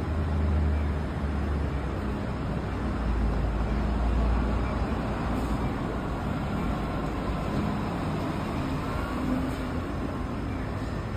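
Vintage city tram at a platform, giving a low steady hum against steady street traffic noise. The hum is strongest in the first few seconds.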